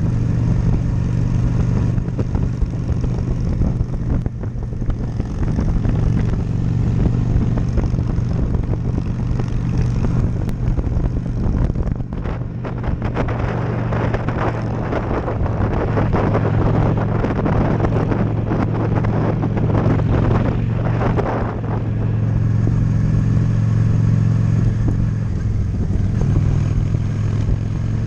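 Honda Shadow V-twin cruiser motorcycle engine running steadily under way, with wind rushing over the camera microphone, strongest around the middle.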